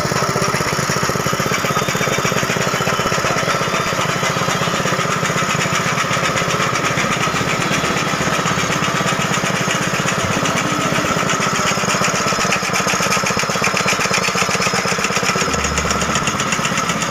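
A motor-driven meat grinder, converted from hand cranking, running steadily with a fast, even rattle.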